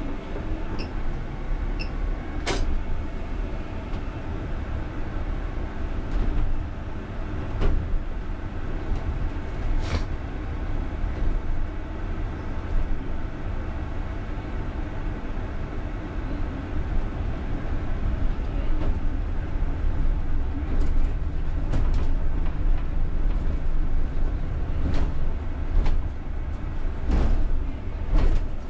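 Cab noise of a UTTZ-6241.01 (MAZ-203T) trolleybus on the move: a steady low rumble from the tyres and running gear, broken by occasional sharp knocks and rattles from the body, which come most often near the end as the bus crosses a very uneven stretch of road.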